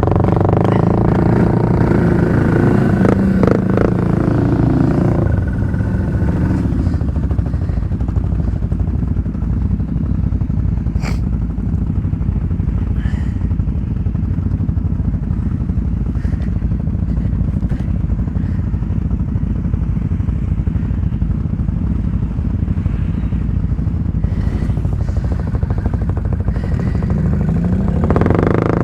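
ATV engine running. Its pitch shifts and drops over the first few seconds, then it settles into a steady low rumble, and it revs up again near the end.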